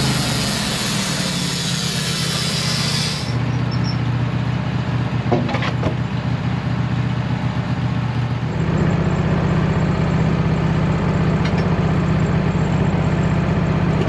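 Wood-Mizer portable band sawmill's engine running steadily. A high hiss, most likely the band blade cutting through the log, stops about three seconds in, and the engine note changes about eight seconds in.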